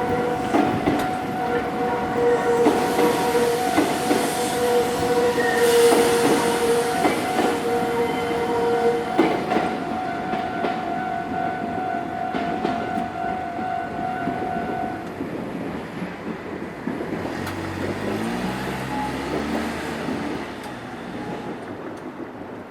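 Nankai Electric Railway train passing over a level crossing, its wheels clacking irregularly over the rail joints. Two steady pitched tones sound over the train; the lower stops about nine seconds in and the higher about fifteen. Near the end a low pitched hum rises in pitch as the train noise fades.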